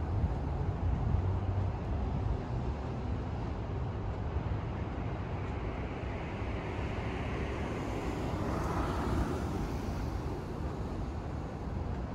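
City street traffic: a steady low rumble, with a vehicle passing that swells and fades, loudest about nine seconds in.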